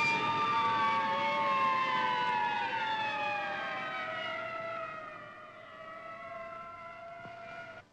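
Ambulance siren wailing, its pitch sliding slowly down and its level easing off over several seconds, then cutting off suddenly near the end.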